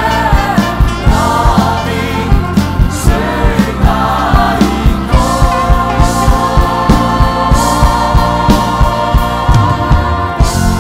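A large cast singing together over a band with a steady drum beat. About halfway through they hold one long note, which ends shortly before the close.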